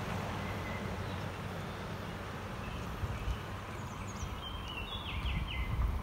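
Outdoor woodland background with a gusty low rumble of wind on the microphone, and a bird giving a short run of falling chirps near the end.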